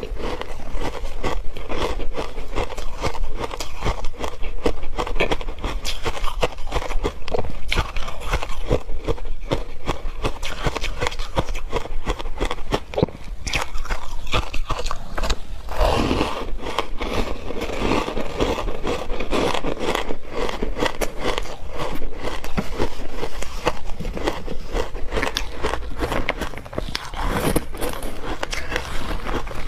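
Ice chunks coated in matcha milk powder being bitten and chewed, a continuous run of crunching and crackling with cracks coming one after another.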